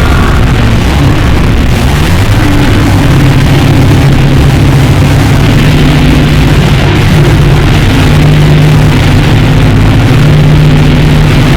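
Harsh noise music: a loud, unbroken wall of heavily distorted noise with a low droning pitch that shifts up and down in steps underneath.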